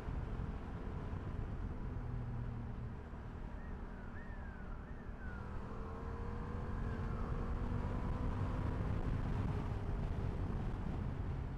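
SRT 800X motorcycle running on the road, its engine mixed with wind noise. Partway through, the engine note and level rise as it accelerates. Around the middle come a few short whines that fall in pitch.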